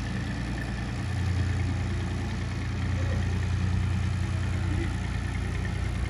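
Massey Ferguson tractor's diesel engine running steadily while pulling a trailer loaded with manure; its low note shifts about a second in.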